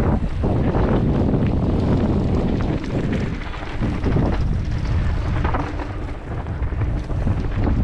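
Wind buffeting the microphone over a loud, steady low rumble, with frequent small knocks and rattles.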